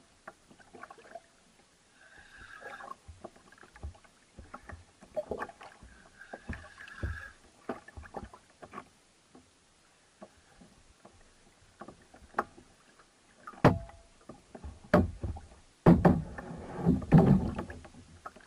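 Knocks, clicks and rattles of a kayak and fishing tackle as a jigging rod and spinning reel are worked against a hooked fish, with three short whirring sounds and a cluster of louder heavy thuds near the end.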